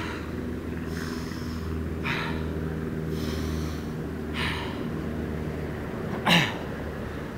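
A runner breathing hard between 150-yard shuttle sprints, winded from the rep just run: a heavy exhale about every two seconds, the loudest one near the end, over a steady low hum.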